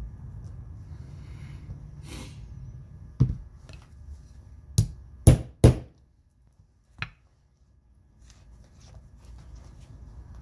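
Five sharp knocks of metal snap hardware being set into a leather vest with a hand snap setter. They come irregularly, two close together and loudest in the middle, over a low steady hum that cuts out about six seconds in.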